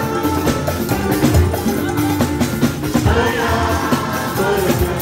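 Yoruba gospel music: voices singing over drums and other percussion.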